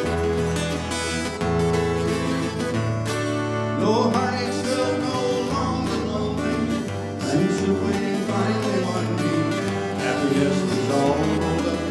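Live band playing a country-rock song on strummed acoustic guitars, including a twelve-string, over a steady low bass line and drums. A man's voice sings from about four seconds in.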